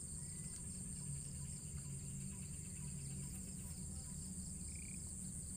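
Insect chorus: a steady high buzz with a rapidly pulsing trill just below it, over a low steady rumble.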